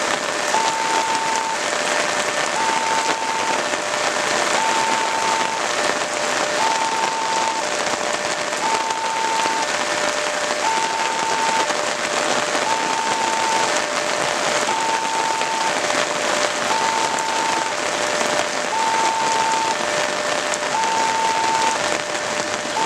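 Railroad crossing warning signal sounding its electronic two-tone alarm, a higher tone and a lower tone alternating steadily, about one tone a second. It sounds over the steady hiss of rain.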